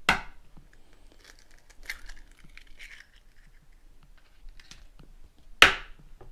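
Eggs being cracked on the rim of a bowl: a sharp tap right at the start and a louder one about five and a half seconds in, with faint crackling of shell being pulled apart in between.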